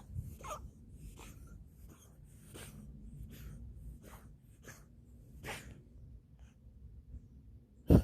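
Cat hacking to bring up a hairball: a run of short, breathy huffs that come less often as it goes on, then one loud, sharp sneeze-like burst near the end.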